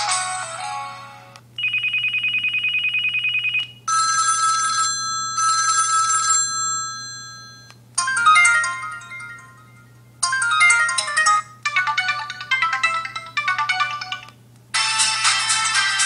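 Samsung U350 phone's built-in default ringtones previewed one after another through its small speaker: a short electronic melody, a steady trilling ring, two bright chiming bursts, then more electronic melodies. Each cuts off abruptly after a few seconds as the next is selected.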